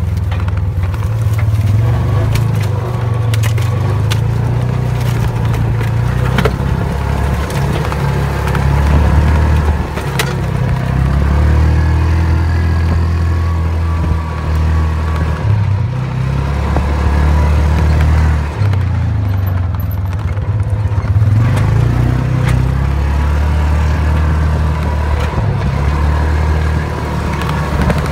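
Engine of an open off-road utility vehicle running as it drives over a bumpy dirt track, with a heavy low rumble and scattered knocks and rattles from the bumps.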